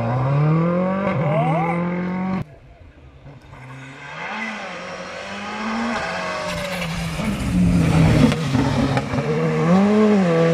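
Rally car engine revving hard through the gears, its pitch climbing and dropping at each shift. About two and a half seconds in the sound cuts to a quieter, more distant car, which grows loud again toward the end as a car slides through the corner with tyres scrabbling on the muddy gravel.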